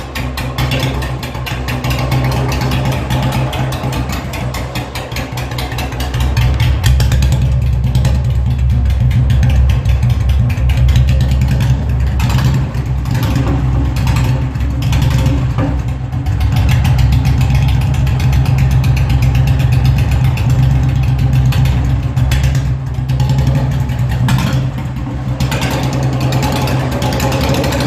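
Royal Enfield Bullet 350 single-cylinder four-stroke engine running, its exhaust giving a steady low pulsing beat. It grows louder about six seconds in and stays loud with small dips.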